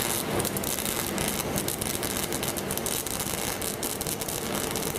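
Wood fire blazing in a forge: a steady rush with dense crackling.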